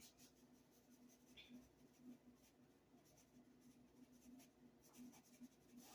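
Near silence with faint scattered ticks and scratching: salt being sprinkled onto the seasoned hen.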